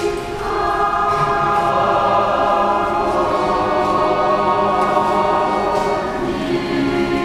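Choir singing slow, held chords, with a new chord coming in about half a second in.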